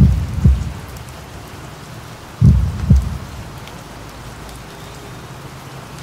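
Steady rain hiss, with a slow, deep heartbeat thumping in double beats twice: once at the start and again about two and a half seconds in.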